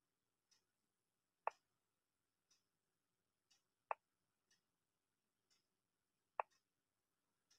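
Chess program's piece-move sound effect: three sharp clicks about two and a half seconds apart, each a move played on the board, with faint ticking about once a second underneath.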